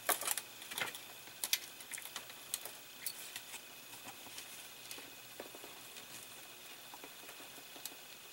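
Faint, scattered small clicks and rustles of fingers pressing and tucking thin wires against a plastic model-car dashboard, busiest in the first couple of seconds.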